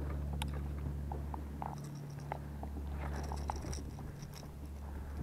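Light clicks, taps and rustles as a small perch hooked on a trolling lure is swung into an inflatable boat and handled, over a steady low hum.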